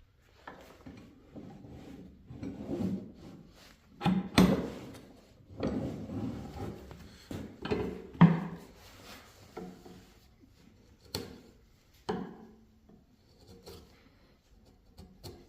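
Wood chisel paring and scraping a maple honey dipper blank in irregular strokes, with a few sharper knocks.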